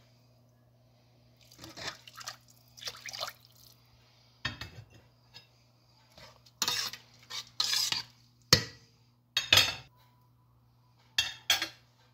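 Metal spoon stirring rice and carrots in water in a stainless steel pot, knocking and scraping against the pot in a series of sharp clinks, the loudest ones in the second half. A faint steady low hum runs underneath.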